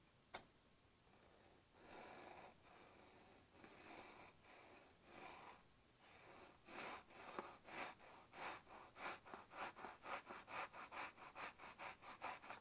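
Kitchen knife sawing through a thick foam sheet: a few slow strokes, then quick back-and-forth strokes, about two to three a second, speeding up toward the end.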